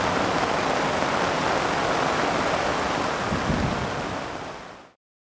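Heavy rain drumming on tent fabric during a thunderstorm, a steady loud hiss, with a brief low thump about three and a half seconds in; it fades out over the last half second into silence.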